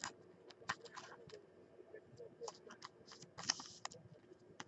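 Trading cards handled between fingers: faint scattered clicks and scrapes of glossy card stock and plastic, with a slightly longer rustle about three and a half seconds in.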